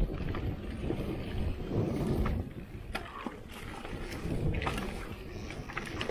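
Mountain bike descending a dirt trail: knobby tyres rolling over dry fallen leaves and packed dirt, with wind rush on the microphone. Several sharp clicks and knocks from the bike as it goes over bumps.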